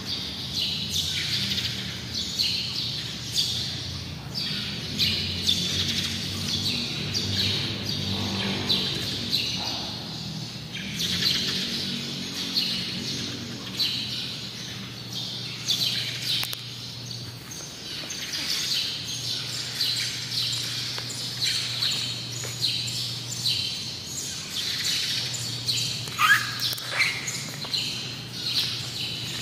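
Many small birds chirping and twittering continuously, with the calls overlapping. A low steady hum runs underneath and breaks off a few times.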